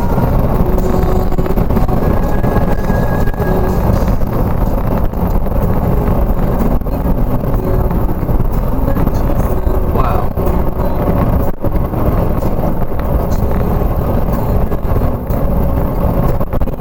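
Steady, loud rumble of a moving vehicle, like car road noise.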